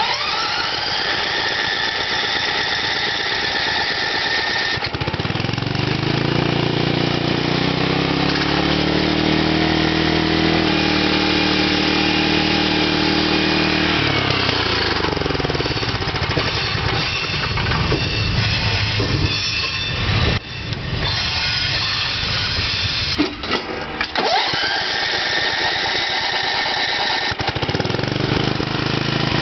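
Small engine of a modified riding-mower lawn cart running under way, revving up and back down, with a steady high-pitched whine or squeal over it and a couple of brief dips in power.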